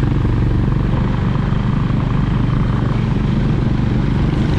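Motorcycle engine running at a steady, even pitch while riding along, heard from the rider's own bike.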